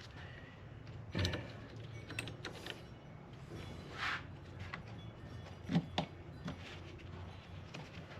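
Plastic trim clips being pushed and snapped into place on a car's cowl panel: a few short clicks and knocks, with a brief scraping rustle about four seconds in, over a low steady hum.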